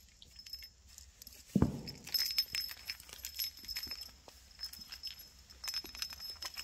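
Kitten pouncing on and wrestling a wand toy on a wooden floor: a thump about one and a half seconds in, then a quick run of clicks and scrabbling, with a thin high ringing over it.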